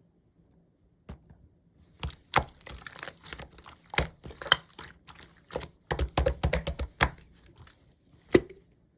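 Slime being squeezed and poked by hand, making irregular sticky clicks and pops. They start after a quiet first second, come thick and fast for a moment about six seconds in, and end with one loud pop near the end.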